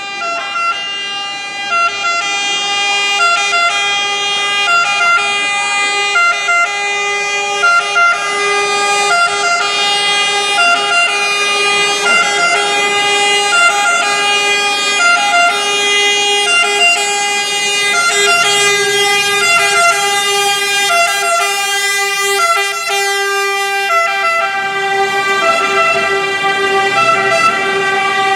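Italian fire engine's two-tone siren sounding continuously, alternating between two pitches, as the Scania fire truck approaches and drives past.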